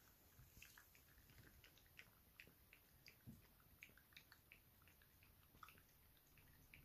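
Bolonka Zwetna dog lapping milk from a small glass bowl: faint, irregular wet clicks of the tongue, roughly three a second, with one soft low knock a little over three seconds in.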